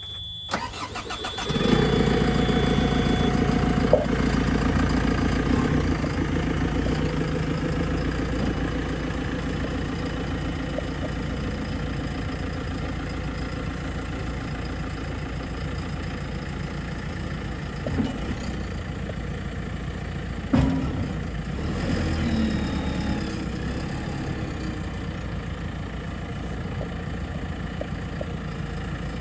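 JCB 3CX 14 backhoe's diesel engine starting up, with a high warning beep over the start. It catches about a second and a half in, runs loud and then settles toward a steady idle, with a few sharp knocks along the way.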